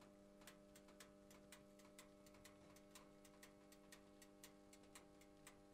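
Faint, even ticking like a clock, about two ticks a second, over a low steady hum.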